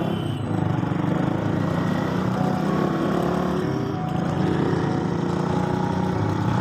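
A small engine running steadily, its pitch shifting a little.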